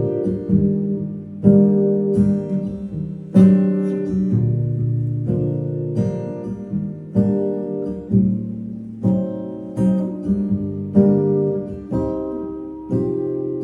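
Acoustic guitar playing chords without a voice, about one chord a second, each chord struck sharply and ringing out before the next.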